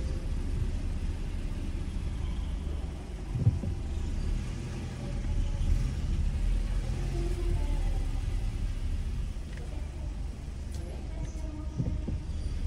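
Low, steady rumble of a car driving slowly, heard from inside the cabin, with a single thump about three and a half seconds in.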